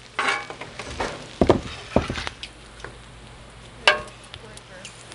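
Bacon sizzling on a steel flat-top gas griddle while metal spatulas scrape across the plate, with several sharp clicks of the spatulas knocking on the steel, the loudest near the end.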